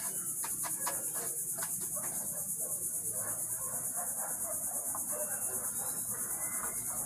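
A steady high-pitched insect chorus, crickets or cicadas, pulsing rapidly without a break. Beneath it, light rustling of dry breadcrumbs as a shrimp is pressed into them and lifted out.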